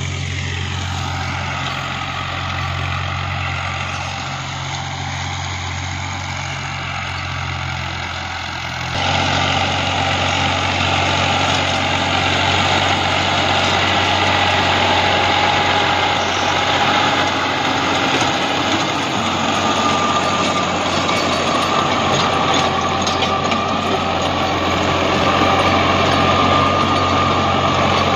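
New Holland Al-Ghazi 65 hp tractor's diesel engine running steadily while it drives a rotavator tilling the field. About nine seconds in the sound gets louder and fuller.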